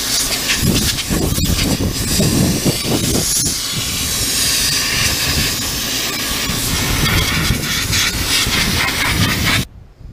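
Sandblaster blasting a steel wheel: a loud, steady hiss of compressed air and abrasive grit striking the metal, cutting off suddenly near the end.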